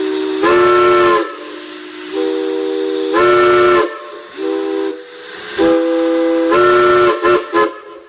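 Steam locomotive's chime whistle blown loudly by its cab cord: a chord of several tones held in long blasts, swelling and easing as the pull changes, then two short toots near the end. It is played as the railroad grade-crossing signal of two long, one short and one long.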